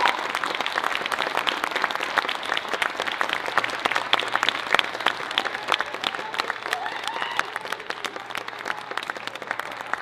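Audience applauding, the clapping thinning out and growing quieter toward the end.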